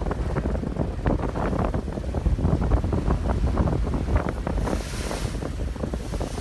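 Wind buffeting the microphone on the open deck of a moving ferry, over the wash of water along the hull, with a brief higher hiss about five seconds in.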